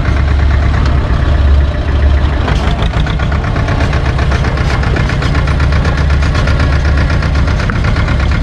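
SAME tractor's diesel engine running steadily under way, heard close up from on the tractor, with a fast, even pulsing over a strong low hum.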